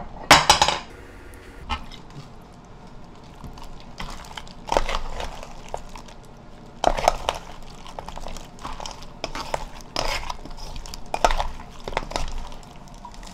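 Cut swimming crab pieces in thick chilli seasoning being tossed with a spoon and gloved hands in a stainless steel mixing bowl: irregular knocks and scrapes of shell and spoon against the bowl, the loudest just after the start.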